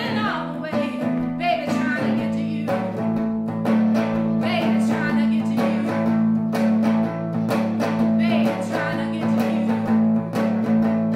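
A woman singing a blues song to her own strummed hollow-body archtop guitar, a solo voice-and-guitar performance, with the sung lines coming in phrases every few seconds over steady chords.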